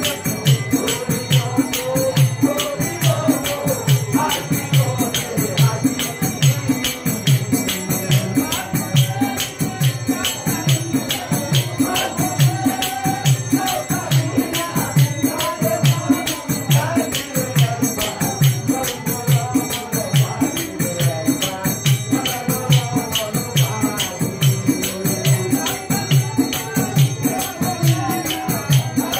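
Live devotional folk music: a dhol drum beats a steady rhythm of about two strokes a second under a harmonium, small hand cymbals jingling in time, and a group of men singing together.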